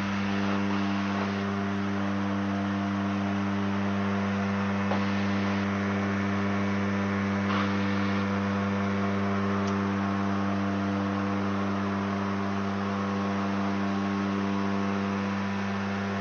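Steady drone of a Turbo Commander's twin Garrett TPE331 turboprops and propellers in the cockpit during the climb after takeoff: a deep, even hum with a few steady higher tones over the noise.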